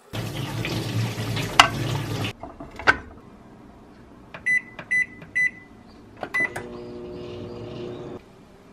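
Water running from a kitchen tap as a kabocha squash is rubbed clean in a steel sink, stopping after about two seconds, then a single knock. A microwave oven's keypad beeps three times at one pitch and once more as it is started, then the oven runs with a steady hum that cuts off near the end.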